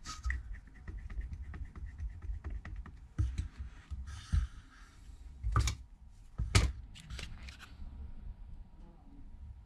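Small clicks and taps of precision tools and phone parts being handled on a workbench, a quick run of light ticks at first, then a brief rustle and two sharp knocks a second apart about midway.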